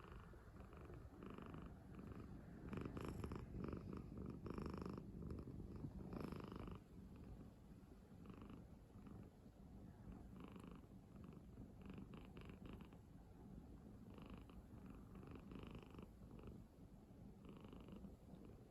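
A sleeping cat snoring: a faint, continuous low purr-like rumble with soft breath sounds every second or two, louder for a few seconds about a quarter of the way in.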